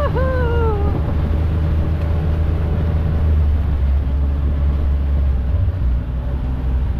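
Off-road side-by-side engine running with a steady low drone while driving over a dirt track. In the first second a high, drawn-out cry rises and then falls over it.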